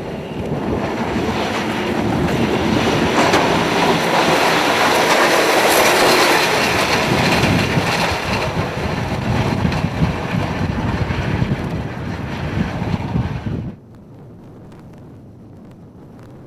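Strong blizzard wind blasting across the microphone as a loud, gusting rush that swells and eases, cutting off suddenly near the end to a much quieter steady background.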